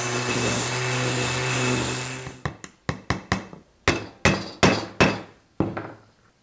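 A cordless drill runs steadily for about two and a half seconds, then about a dozen sharp hammer taps on wood follow in quick, uneven succession as small nails are driven to join the nest box's boards.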